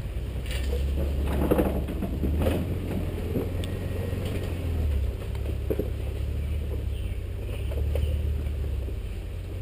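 Off-road vehicle crawling over a rocky trail: a low, steady engine rumble that swells and eases, with scattered knocks and creaks from the body and suspension as it rocks over stones.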